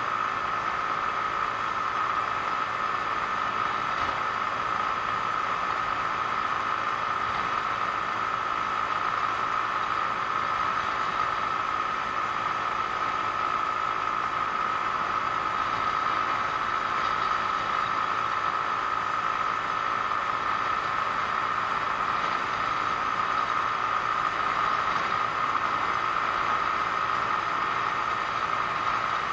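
Genuine Buddy 125 scooter's four-stroke single-cylinder engine running steadily at cruising speed, with wind rushing over the microphone and a steady high-pitched whine throughout.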